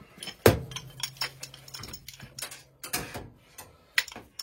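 Metal tools and pipe fittings clinking and knocking as a gas-valve adapter is handled and fitted, with a sharp knock about half a second in, then a quick string of light clicks.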